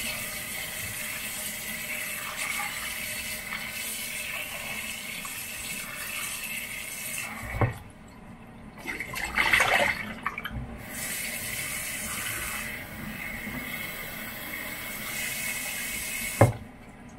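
Kitchen tap running into a saucepan of water in a stainless steel sink. The flow stops with a knock about eight seconds in, water splashes in the pan for a second or two, then the tap runs again until another knock near the end.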